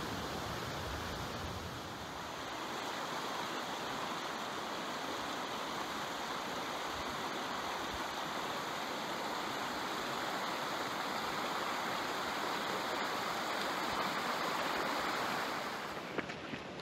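Mountain stream white water rushing in a steady hiss. Near the end it fades and a few footsteps crunch on the trail.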